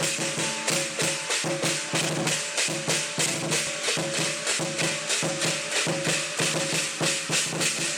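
Chinese lion dance percussion: drum, clashing cymbals and gong played together in a fast, steady beat, with about four cymbal crashes a second over a ringing tone.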